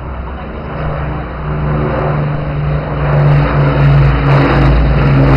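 Deep, steady drone of two Avro Lancaster bombers' Rolls-Royce Merlin V12 engines, four per aircraft, together with two escorting Spitfires, flying over low in formation. The drone swells in loudness over the first three seconds as the formation comes overhead, then stays loud.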